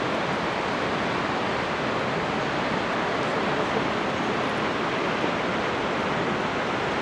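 Shōmyō Falls, a waterfall dropping about 350 m, giving a steady, unbroken rush of falling water.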